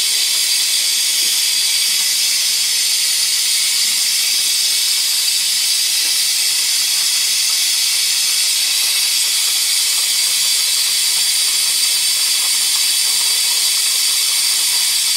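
Compressed air hissing steadily out of the open drain valve of an air compressor tank, spitting out condensate water from a tank that has never been drained.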